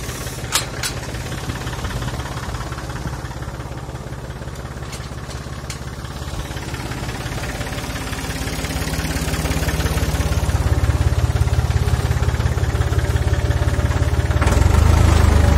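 Massey Ferguson 255 tractor's three-cylinder diesel engine running steadily as the loaded tractor crawls in four-wheel drive over a rough, stony track, growing louder in the second half. A couple of sharp knocks sound about half a second in.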